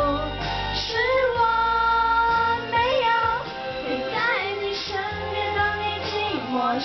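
A young woman singing karaoke into a microphone over a backing track. About a second in she holds one long note.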